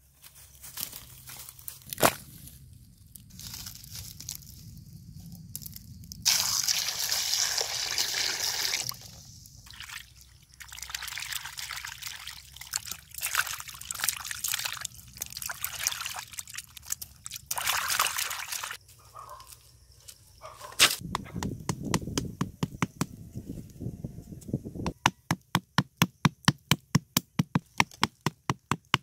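Water sloshing and splashing in a pot as eels are washed in it by hand, in several bursts. Near the end, a fast even run of sharp knocks, about four a second.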